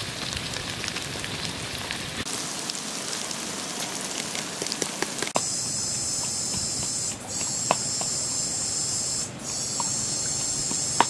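Fish and tomato stew sizzling and simmering in a wok. About five seconds in it changes abruptly to a steady high-pitched buzz, broken twice by short dropouts, with a few faint ticks.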